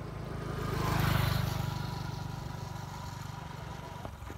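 A small motorbike engine passing close by, swelling to its loudest about a second in and then slowly fading away.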